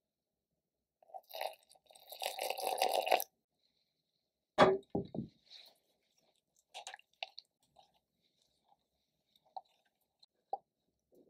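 Kitchen handling noise: a rough rustling burst of about two seconds, then one heavy thump. After that, light scattered taps and scrapes of a silicone spatula against a glass bowl as milk and egg yolks are stirred together for custard.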